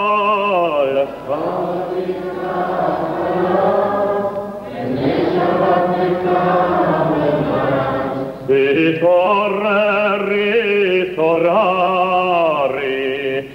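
A synagogue cantor chanting the Shabbat liturgy, his voice wavering with vibrato. From about a second in, several voices sing together for some seconds, then the cantor's solo voice returns.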